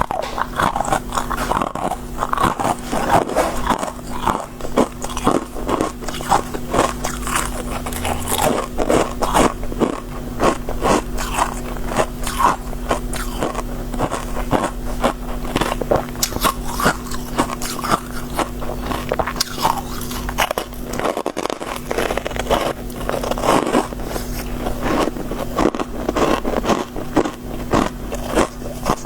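Close-miked crunching as soft, crispy shaved freezer-frost ice is bitten and chewed: a dense, irregular stream of crisp crunches. A steady low hum runs underneath and drops out briefly about two-thirds of the way through.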